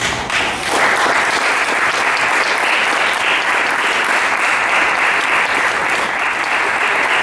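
Audience applauding, breaking out suddenly and swelling to full strength within the first second, then holding steady.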